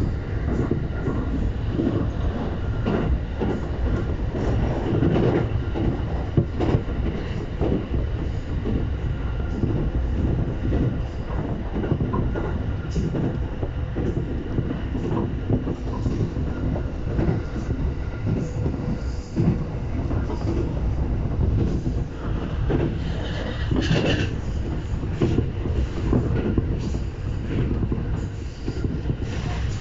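E235-1000 series electric train running, heard from inside the car: a steady rumble from the wheels and rails with frequent knocks over rail joints. About three-quarters of the way through there is a brief higher wheel squeal.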